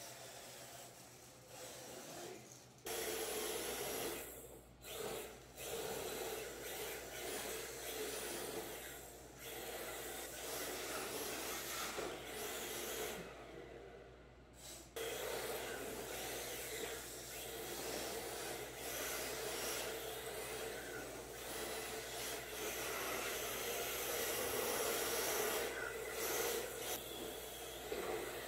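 Radio-controlled drift cars sliding on a smooth concrete floor: a scrubbing hiss of hard drift tyres that swells and fades as the cars go through the drifts, dropping away briefly about halfway through.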